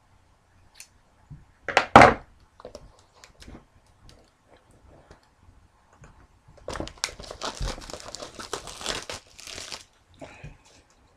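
Plastic wrapping on a sealed trading-card box being torn open: a sharp rip about two seconds in, a few small crackles, then a long stretch of crinkling as the wrapper is pulled off and crumpled.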